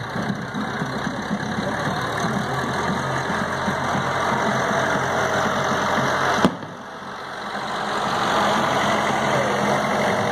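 Farm tractor engine running as the tractor pulls a parade float past at walking pace. There is a sharp click about six and a half seconds in, then a brief dip, and the engine grows louder as the tractor draws alongside.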